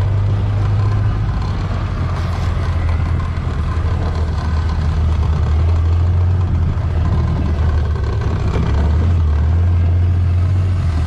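Side-by-side utility vehicle's engine running as it drives along a rough dirt logging road, a steady low drone under the noise of the ride.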